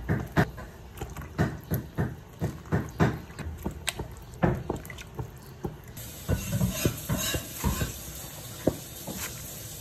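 Water sloshing and splashing in a plastic colander basin as water spinach and cabbage are stirred about with metal tongs, with repeated short knocks and splashes. About six seconds in, the sound shifts to a hissier splashing.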